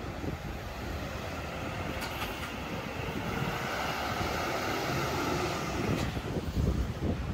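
Highway coach driving slowly past and pulling away: steady diesel engine rumble and tyre noise, swelling as it passes closest, with two faint clicks.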